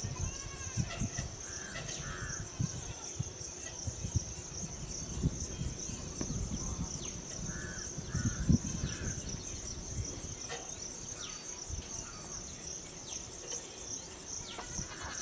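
Insects chirping in a steady, high-pitched, evenly pulsing chorus.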